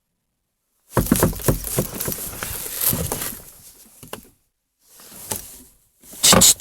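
Scratching, tapping and rustling of a cat's claws pawing at a glass pane, starting about a second in, with a louder scratchy burst near the end.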